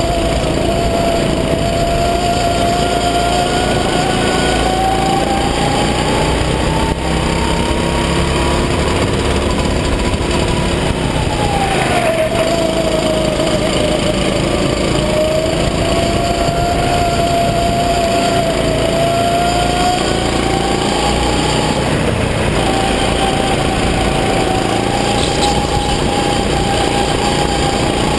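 Rental go-kart engine running at high revs, heard from the driver's seat, its pitch climbing slowly, dropping sharply about twelve seconds in, climbing again, then dropping near the end.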